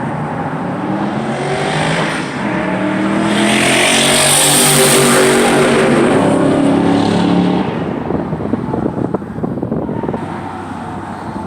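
Turbocharged BMW E39 540i V8 exhaust under hard acceleration, building to its loudest around the middle. It drops off suddenly as the throttle closes, followed by a few sharp pops.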